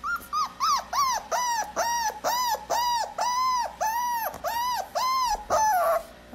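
Chihuahua puppy yapping: a quick run of short, high-pitched yaps, about three a second, ending with a longer yap that falls in pitch.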